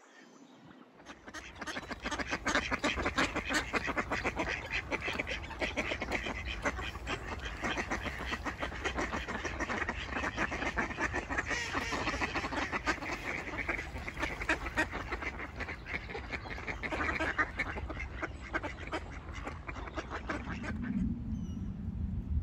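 A flock of mallard ducks quacking, many calls overlapping in a dense, continuous chorus. It starts about a second in and stops shortly before the end.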